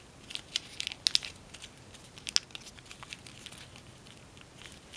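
Tissue foil (tissue paper laminated with aluminium foil) crinkling and crackling quietly between the fingers as the folds of a small origami model are pinched and pushed together. It gives scattered light clicks, with a few sharper ones about a second in and just before halfway.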